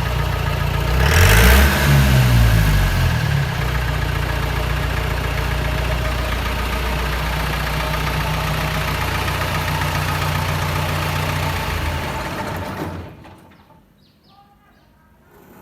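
Jeep engine, run after standing unused for many days, revved up and down for the first few seconds, then idling steadily. About thirteen seconds in, it cuts out suddenly.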